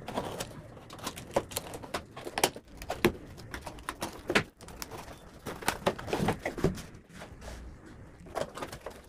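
Utility knife slitting packing tape on a corrugated cardboard box, with the flaps torn and pulled open: an irregular run of short scrapes, rips and clicks.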